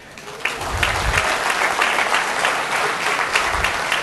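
Large audience applauding. The clapping builds up about half a second in and then carries on steadily.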